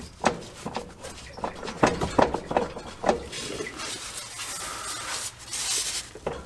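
A Ram 3500's drive shaft slip yoke is worked onto the freshly cleaned and lubricated transmission tail shaft. There are several metal knocks and clicks over the first three seconds, then a few seconds of scraping, sliding noise.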